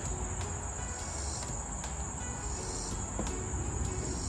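Insects trilling steadily at a high pitch, with a low rumble underneath.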